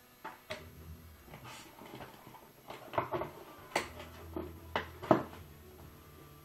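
Motherboard box and its packaging being handled: a string of irregular knocks and taps, loudest around three, four and five seconds in.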